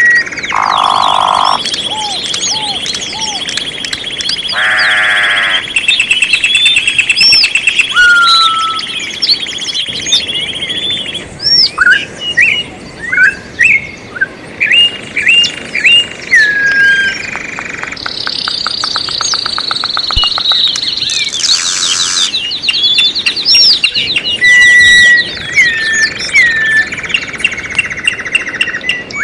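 Several songbirds singing over one another: quick chirps, whistled up-and-down notes, held whistles and fast trills that overlap throughout.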